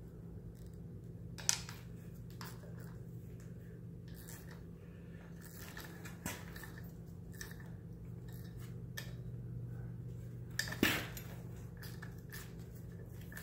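Scattered metallic clicks and clinks of hand tools being handled against a manual transmission's drive flange, with two sharper knocks, one about a second and a half in and one near the end. A steady low hum runs underneath.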